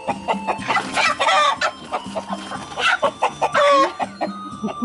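A hen trapped under a conical straw hat, squawking in alarm as she is caught: three or four harsh squawks, the last one the longest.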